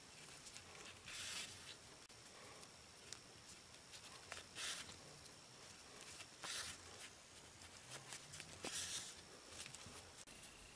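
Faint swishes of yarn being drawn through crocheted stitches during whip-stitching, about four short pulls a couple of seconds apart.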